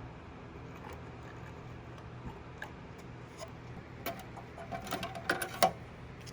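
Small metal parts of a cuckoo clock movement being handled: scattered light clicks, then a quick run of sharp metallic clinks with a brief ring from about four seconds in, over a steady low hum.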